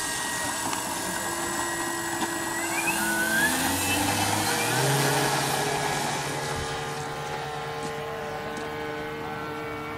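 Radio-control biplane's engine and propeller throttling up for the takeoff roll, the pitch rising about three seconds in. The sound is loudest around lift-off and then fades as the plane climbs away.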